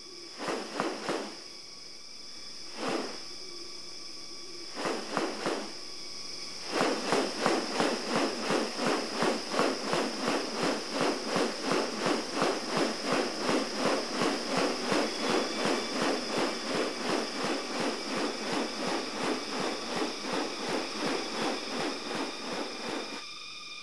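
Tropical forest ambience: a steady high insect drone, with a few separate animal calls in the first seconds. From about seven seconds in, a loud call repeats rapidly, about three times a second, easing slightly toward the end.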